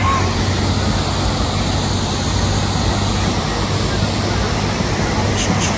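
Steady rushing of water from an artificial rock waterfall pouring into a pond, with a low steady hum underneath.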